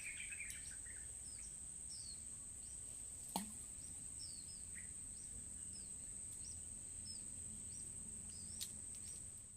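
Tropical riverside ambience: a steady high insect drone with scattered short bird chirps. A single sharp click comes about three and a half seconds in.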